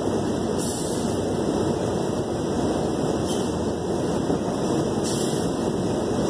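Steady engine and road noise inside the cabin of a moving city bus, with three brief high hisses along the way.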